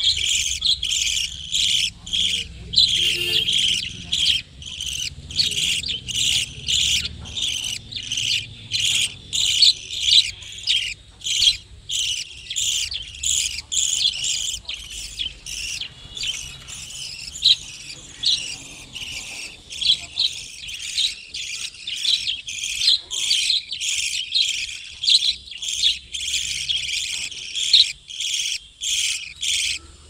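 A colony of budgerigars chattering: many rapid, high chirps and warbles overlapping without a break.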